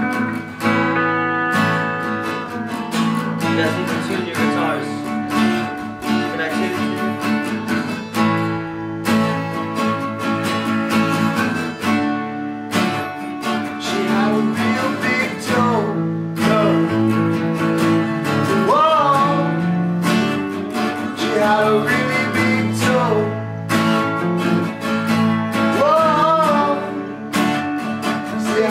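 Acoustic and electric guitars playing together live: steady strummed chords with a melody line gliding over them in the second half.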